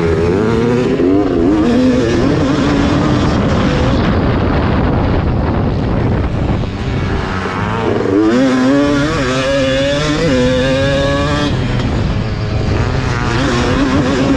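1991 Yamaha WR250 single-cylinder two-stroke motocross engine under race throttle, its revs climbing and dropping. Near the middle the throttle eases and it goes softer, then it winds up again in several quick rising runs.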